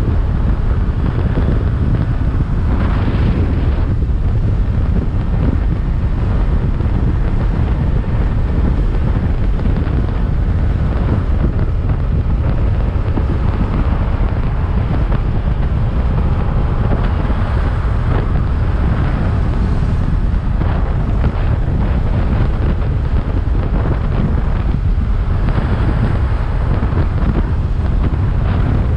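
Steady, loud wind roar buffeting the microphone of a motorcycle riding at speed, with no clear engine note above it.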